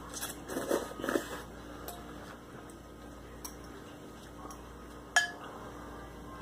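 Noodles being slurped off a fork in the first second or so, then a single clink of a metal fork against a glass bowl, ringing briefly, about five seconds in.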